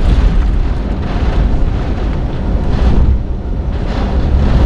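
Hurricane-force wind of Ian's eyewall, a loud, steady rush with heavy wind noise on the microphone. It eases slightly for a moment about three seconds in.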